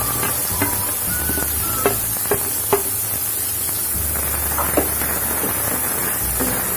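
Chopped onions sizzling in hot oil in a metal kadhai as a wooden spatula stirs them, with a handful of sharp knocks against the pan.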